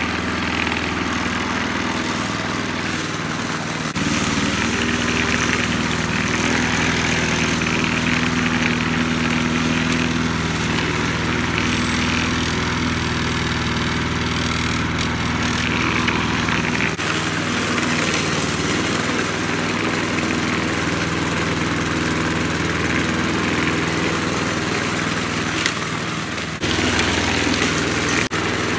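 Walk-behind lawn mower's petrol engine running steadily under load, its tone and level shifting abruptly a few times.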